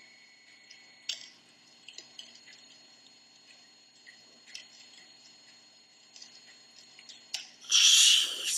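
Near quiet: faint scattered clicks over a faint, steady high-pitched whine. Near the end comes a loud hissing breath from a person.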